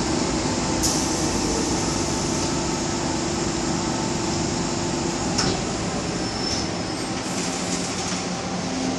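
Steady noise inside an MTR M-Train carriage with a steady hum that stops about five seconds in. Two short clicks come, one about a second in and one about five seconds in.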